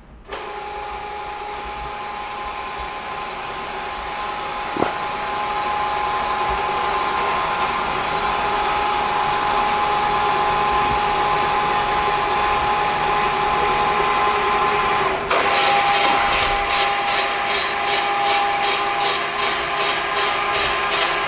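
Motor-driven carriage of a JLT cabinet door and frame clamp running, a steady mechanical whine at two fixed pitches that grows slowly louder. About fifteen seconds in the sound changes and a fast, regular rattle joins the whine.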